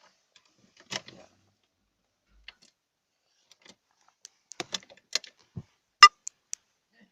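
A few scattered sharp clicks and knocks: one about a second in, a quick cluster near the middle, and the loudest near the end followed by two lighter ticks.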